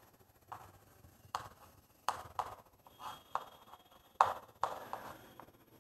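Chalk writing on a chalkboard: irregular taps and short strokes of the chalk as words are written.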